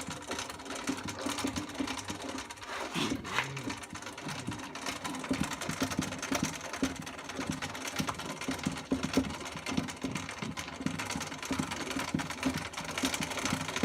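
Height-adjustment crank of a DeWalt 12.5-inch portable thickness planer being turned by hand, a fast continuous run of small clicks and rattles as the cutter head carriage winds down.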